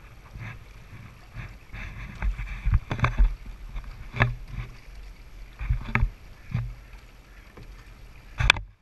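Rowing eight paddling under way: oars knocking in their oarlocks and blades splashing as they enter and leave the water, in irregular strokes every second or so over a low rumble.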